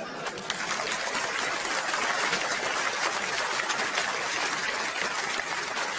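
Studio audience applauding: a dense, steady patter of many hands clapping.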